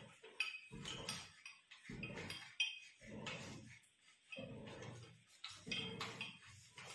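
Metal tubes of a tripod floor-lamp stand clinking and knocking as they are handled and fitted together, the sharpest knock about two and a half seconds in. Short, low, voice-like sounds come and go in between.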